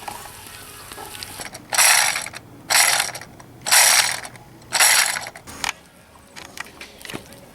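A ratcheting mechanism making four rasping strokes about a second apart.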